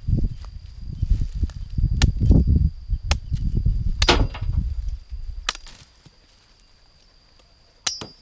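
Machete chopping cassava stems: about five sharp strikes at irregular intervals of a second or more, over a low rumble that dies away about five seconds in.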